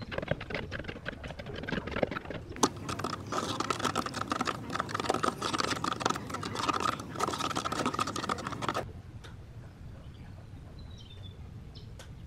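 Wooden stick stirring and scraping thick tinted epoxy resin in a cut-down plastic jug: rapid, busy scraping and clicking that stops suddenly about nine seconds in. A few faint chirps follow.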